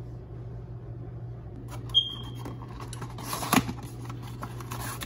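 A cardboard Revlon hair-dye box being opened by hand: clicks and crackling of the flap and packaging start about two seconds in, with the loudest crackle a little past the middle, over a low steady hum.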